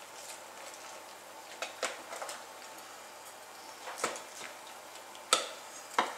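Kitchen knife cutting the leg off a roast chicken on a wooden board: a few scattered sharp clicks and knocks of the blade against the board and through the joint, the loudest two near the end.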